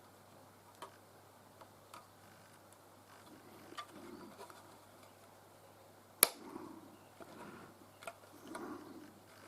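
Small clicks and soft handling noises of 3D-printed parts being pressed together by hand, with one sharp click about six seconds in.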